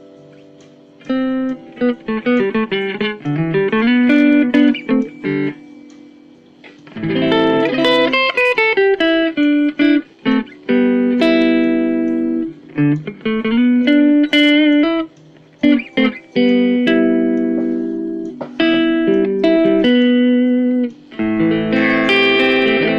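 Mavis MST 600 electric guitar played on its clean tone with the neck pickup: plucked single-note runs and chords, starting about a second in, with a short pause partway through.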